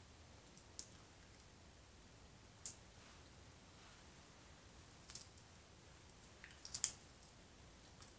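Hands signing in sign language: a few short, sharp clicks and taps of fingers, nails and rings, the loudest a quick cluster near the end, over quiet room tone.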